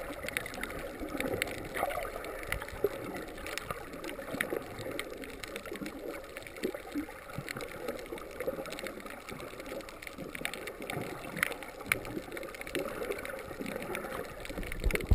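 Water gurgling and swishing as heard underwater, with many scattered sharp clicks.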